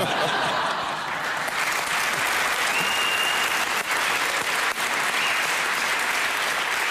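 Studio audience applauding steadily after a punchline.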